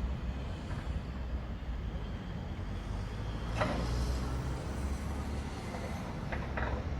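Heavy machine's diesel engine running with a steady low rumble as the pile driver is loaded onto a trailer. A sharp metallic clank sounds about three and a half seconds in, and two short knocks follow near the end.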